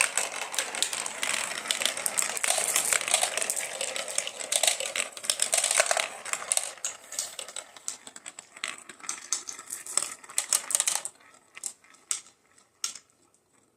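Marbles rolling and clattering down a marble run: a dense stream of rapid clicks and rattles. The clicks thin out after about six seconds and fall to a few scattered clicks near the end.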